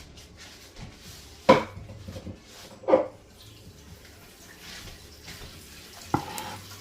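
Kitchen dishes and utensils being moved and set down on a counter: two sharp clinks about a second and a half apart, the first the loudest, and a lighter knock near the end.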